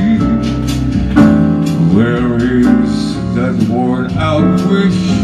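A man sings a slow ballad into a microphone over a backing track with guitar.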